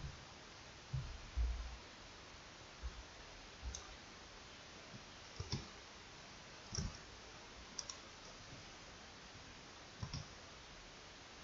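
Computer mouse clicks, irregular and faint, about ten of them, over a steady hiss. The loudest are a couple of duller thumps about a second in.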